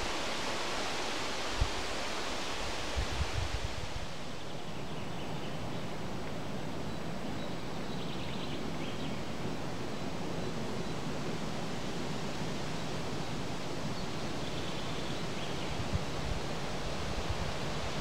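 Wind blowing through riverside trees, a steady rustle of leaves, with a few short low buffets of wind on the microphone.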